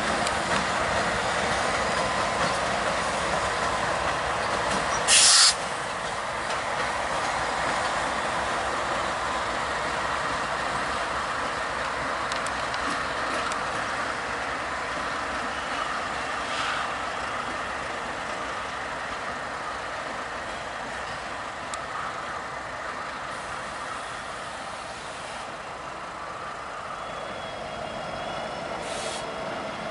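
BNSF diesel locomotives moving slowly past, a steady mix of engine and rail noise that slowly fades. About five seconds in there is a short, loud hiss of air, with fainter ones later.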